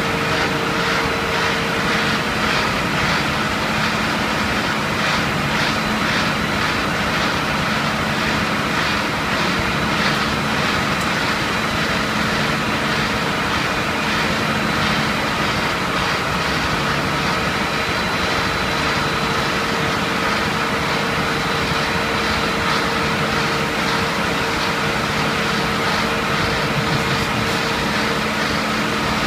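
HDPE raffia tape stretching line running: a steady machine drone of motors and rollers, with a few constant hum tones and a faint, even ticking over it.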